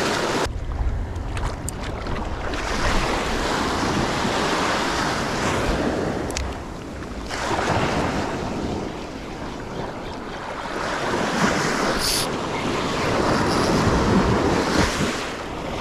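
Surf breaking and washing up the beach, swelling and falling away several times, with wind buffeting the microphone.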